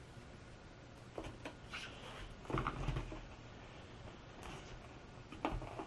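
Hands handling and pressing foam board fuselage pieces together: a few scattered soft rubbing and scraping sounds. The loudest comes about two and a half seconds in, with another short one near the end.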